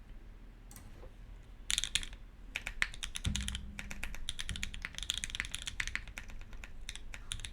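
Typing on a SingaKBD Unikorn R1 mechanical keyboard with lubed, filmed Gateron Ink v1 switches on an aluminium plate and GMK keycaps. The typing starts about a second and a half in as a fast run of key clacks, with one deeper thud about three seconds in.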